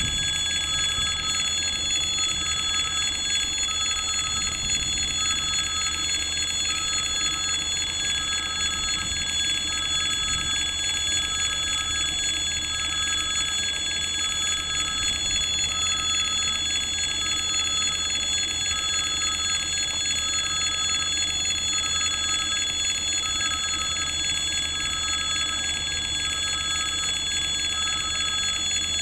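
Russian level-crossing warning bell ringing continuously, with one tone pulsing on and off about once a second: the crossing signal is active.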